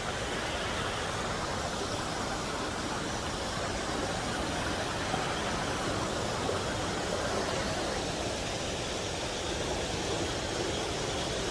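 Steady rushing of flowing water from a stream.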